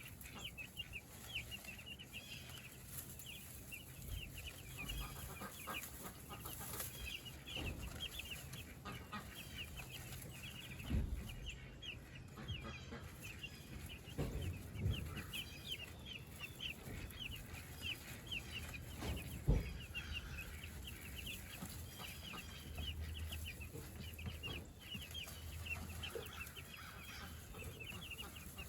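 A flock of meat chickens giving a constant stream of short, quick peeps and cheeps, with a few dull knocks in between.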